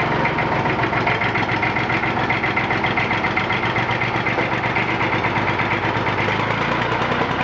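1959 Fordson Dexta's three-cylinder Perkins diesel engine running steadily with a fast, even beat, just after catching on a hard cold start with ether after sitting about six months.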